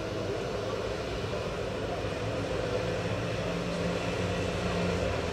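A steady low mechanical drone with a hum in it, slowly growing a little louder.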